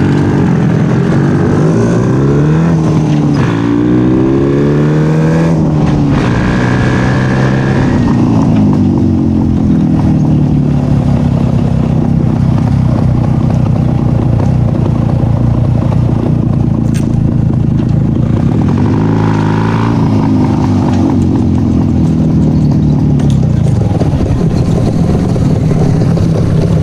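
Vintage Czechoslovak two-stroke motorcycles under way on the road. The engine pitch climbs through the revs a couple of seconds in, then runs steady, with another rise and fall a little past the middle.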